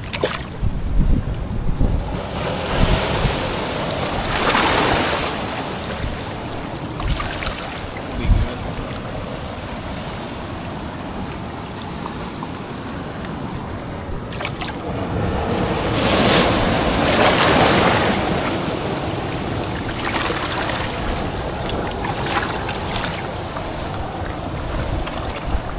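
Surf washing in over shoreline rocks and foaming back out, swelling in louder surges a few seconds in and again past the middle, with wind rumbling on the microphone.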